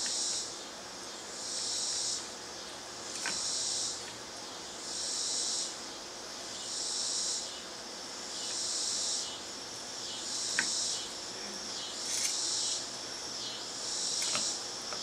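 An insect calling in even, high-pitched bursts, each about two-thirds of a second long, repeating roughly every two seconds. A few faint taps or scrapes come through in between.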